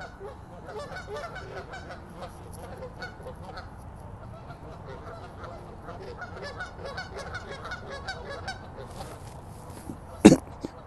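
A flock of Canada geese honking loudly over one another in a squabble: many short, overlapping honks. A single sharp knock stands out near the end.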